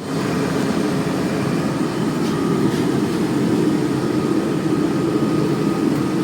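Homemade firebrick forge running hot at forging heat: a steady, loud, low rushing roar from its fire.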